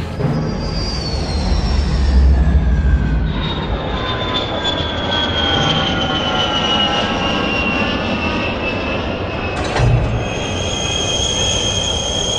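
Airplane flight sound effect: a steady rushing noise with high whines that slowly fall in pitch, then hold as steady high tones near the end, with a short thump about ten seconds in.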